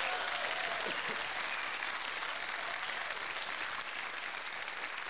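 Studio audience applauding, a dense steady clapping that eases off slightly toward the end.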